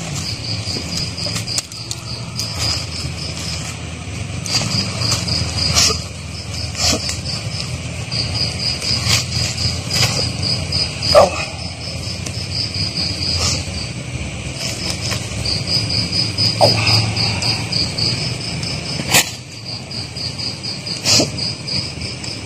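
Crickets chirping in quick pulsed trains, over and over, with scattered sharp knocks and rustles. The loudest of these is a short sharp sound about eleven seconds in.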